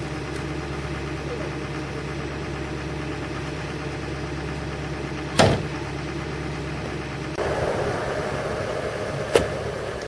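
GMC pickup truck idling with a steady low hum, with two sharp knocks, one about five seconds in and one near the end. After about seven seconds a rushing hiss covers the idle.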